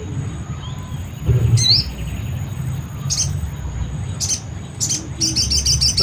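Small birds chirping: a few short, high chirps spaced out, then a quick run of repeated chirps near the end, over a steady low rumble and a thin, steady high tone.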